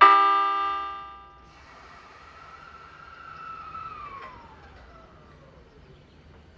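An E217-series electric train's horn gives one loud blast that fades out over about a second and a half. Then a fainter whine comes from the train's electric traction equipment as it starts to pull away. The whine rises slightly, then glides steadily down in pitch over the next few seconds.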